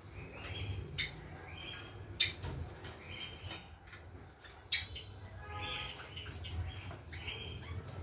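Blue Indian ringneck parakeet giving short chirps and chatter, with a longer call a little past halfway. Three sharp clicks cut in, the loudest about two seconds in.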